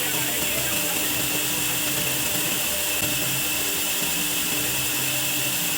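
Sawmill bandsaw running steadily as it cuts through a large log, giving an even, continuous noise with a high steady whine.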